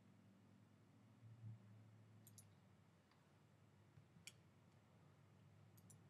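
Near silence with a few faint computer mouse clicks, a pair about two seconds in and single ones near four and six seconds.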